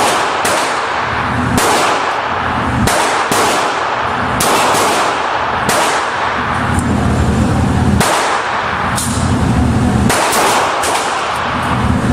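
Gunshots at a shooting range, sharp cracks at irregular spacing, roughly one a second, over a steady loud background noise.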